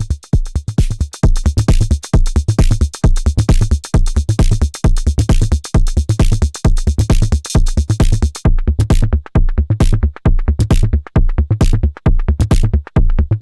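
Arturia Drumbrute Impact analog drum machine playing a driving electronic beat with its distortion engaged: a heavy, fast kick pattern under a continuous hiss of high percussion. About two-thirds of the way through, the continuous hiss drops out, leaving separate hi-hat-like hits over the kicks.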